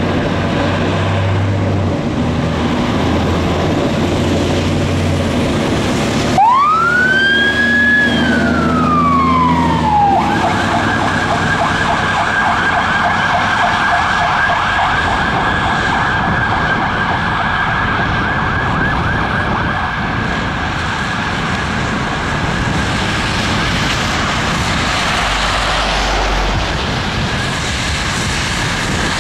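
Fire truck's heavy engine running, then about six seconds in its siren gives one wail, rising and falling. It then switches to a fast warble that carries on as the truck drives off.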